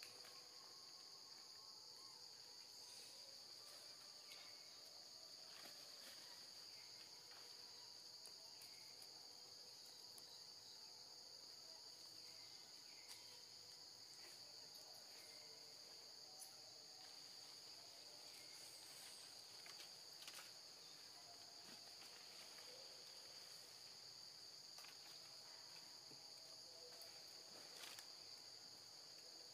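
Faint, steady high-pitched drone of insects in the forest undergrowth, with scattered soft clicks and brief chirps.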